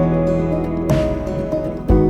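Background music: a soft instrumental track with guitar, its chords changing about once a second.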